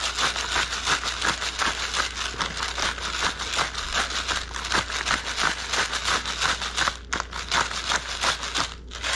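Hand-twisted pepper mill grinding black peppercorns: a fast, continuous run of crackling clicks, easing briefly about seven seconds in and stopping near the end.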